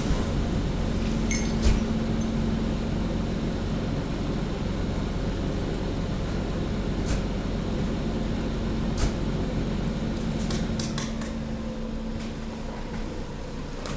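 Hydraulic waste compactor's pump unit running with a steady hum, a few sharp clicks and clinks over it. The hum eases a little and its tone drops away near the end.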